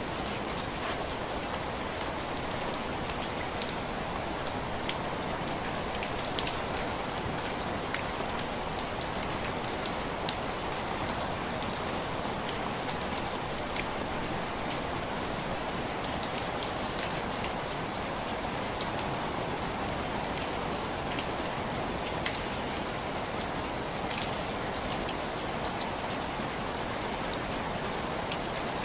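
Steady rain, with scattered individual drops ticking sharply on window glass.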